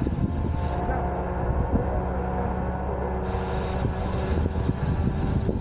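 A vehicle engine running steadily at low revs, with a constant, unchanging drone.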